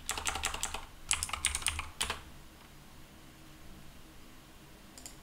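Fast typing on a computer keyboard, a quick run of keystrokes for about two seconds, then quiet apart from one more click near the end.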